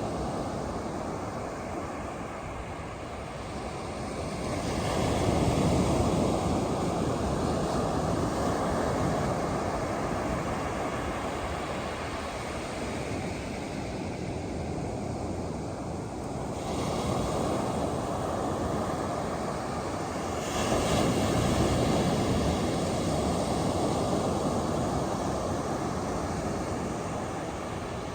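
Ocean surf: waves breaking and washing up the beach as a steady rush, swelling loudest about five, seventeen and twenty-one seconds in and easing off between.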